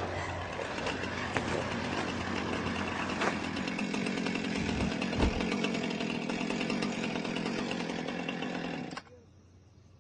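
Loud, harsh buzzing noise with a steady drone beneath it, cutting off abruptly about nine seconds in.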